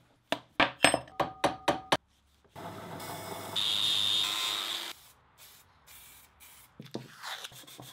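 A run of sharp metallic knocks and clinks on a steel part, about eight in the first two seconds, some of them ringing briefly. Then an angle grinder grinds steel for about two and a half seconds with a high whine over the noise and cuts off, followed by a few faint clicks.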